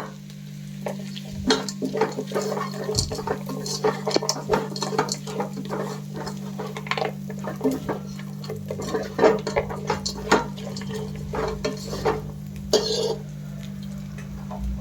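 Metal utensil stirring in a cooking pan, with irregular scraping and clinking against the pan as egg, chicken and vegetables are tossed together. A steady low hum runs underneath.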